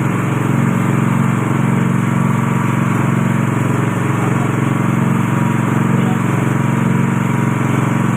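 Coconut milk press machine running steadily at full speed, its motor giving a continuous even drone.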